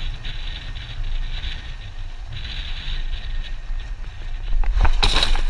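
Wind rushing over the microphone of a camera held out of a moving Jeep's window, with the rumble of the Jeep driving on a dirt road. The noise swells about four and a half seconds in and turns to a louder, brighter rush near the end.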